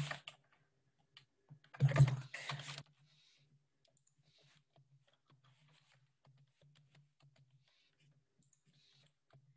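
Computer keyboard typing: a quick run of keystrokes about two seconds in, then faint, scattered key clicks.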